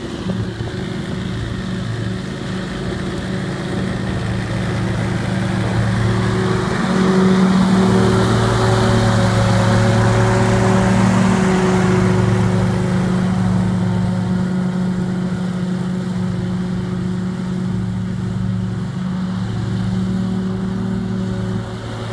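Scag Tiger Cat II zero-turn mower with bagging system, its engine running steadily with a rushing noise from the bagger. It gets louder from about six seconds in, as though coming closer, and eases off again in the second half.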